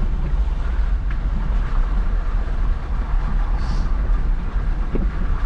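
Jeep engine and drivetrain rumbling steadily while driving slowly off-road, with a brief hiss a little over halfway through.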